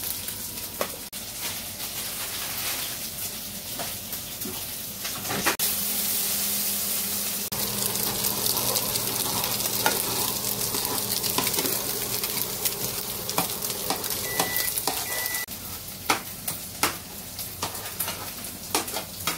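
Food sizzling in a frying pan, with a metal spoon clicking and scraping now and then against a saucepan as its thick white contents are stirred.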